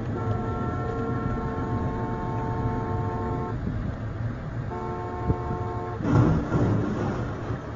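A car horn held in one long blast of about three and a half seconds, then a shorter blast of about a second, sounding as a warning to a dump truck driving with its tipper bed raised. Steady road and engine rumble heard from inside a moving car runs underneath.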